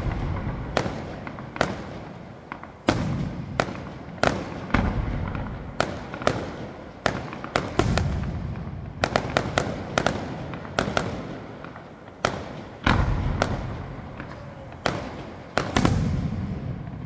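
Aerial firework shells bursting in a display: a rapid, irregular run of sharp bangs, each trailing into a low rumbling echo, with a quick cluster of bangs about halfway through.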